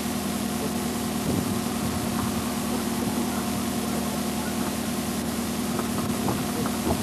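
An engine idling steadily, a constant low hum under a heavy hiss, with a few faint knocks.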